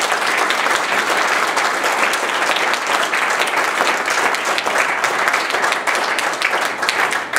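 Audience applauding, a dense run of clapping that thins into a few separate claps near the end.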